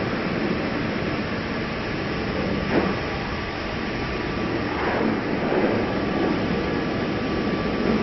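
Dryer blowing air at a dog's coat: a steady rushing hiss with a faint hum, and a single brief click about three seconds in.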